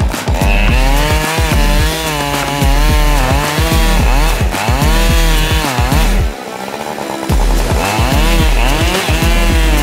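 Husqvarna chainsaw running at cutting speed as it saws the felling cut through a large tree trunk, with music playing underneath.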